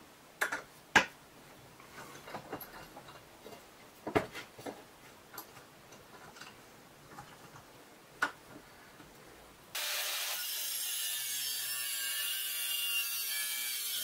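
A few sharp knocks and light clicks as a clamped square steel tube is handled and marked on a wooden bench. About ten seconds in, an angle grinder's cut-off disc cutting into the steel tube starts abruptly and runs steadily.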